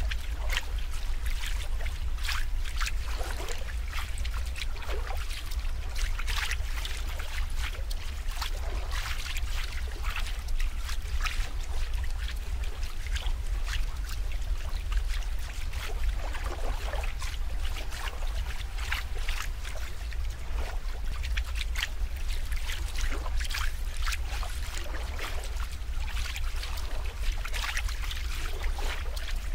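Water trickling and lapping, with frequent small irregular splashes over a steady low rumble.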